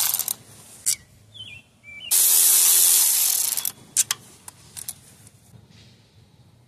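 Pneumatic ratchet running in a short burst of about a second and a half, a loud hiss of exhaust air over a steady motor hum that winds down as the trigger is let go, spinning out a 10 mm timing-cover bolt. The tail of an earlier burst ends right at the start, and a few light metal clicks come before and after.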